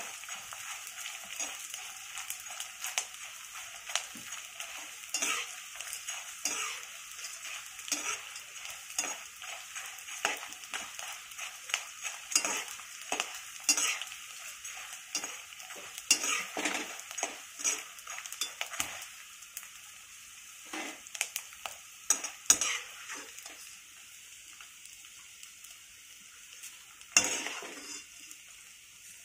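Edible gum (dink) frying in hot ghee in a kadhai, sizzling, while a spoon stirs and scrapes against the pan in many short strokes. The sizzle and stirring thin out in the last third, with one louder scrape near the end.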